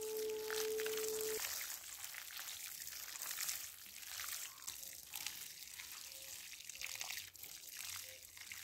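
Water from a plastic watering can's rose pouring and trickling onto loose soil in buckets, a steady splashing hiss. A steady tone sounds over the first second and a half.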